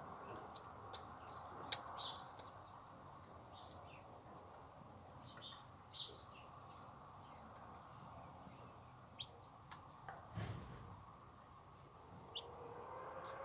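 Young poultry chicks peeping: short high chirps scattered irregularly, with a brief low thump about ten seconds in.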